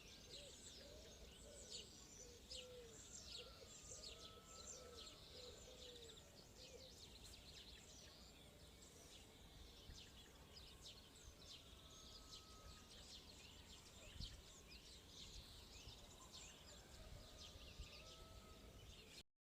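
Faint chorus of birds calling: many quick high chirps throughout, with lower warbling calls over the first several seconds. A single soft low thump comes about fourteen seconds in.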